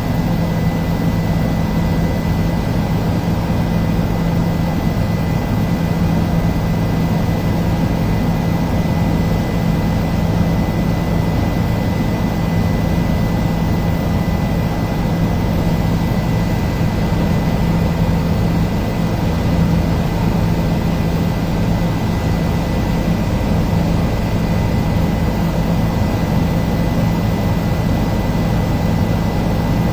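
Helicopter in steady flight: a constant drone from the rotor and engine, with a thin steady high-pitched whine over it.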